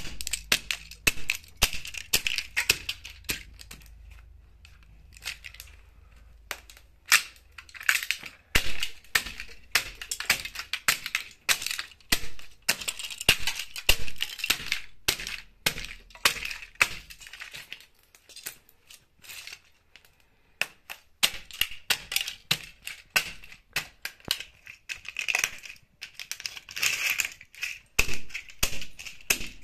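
Plastic model airplanes cracking, snapping and crunching under espadrille wedge heels: many sharp cracks in irregular clusters, with quieter pauses about five seconds in and again around twenty seconds.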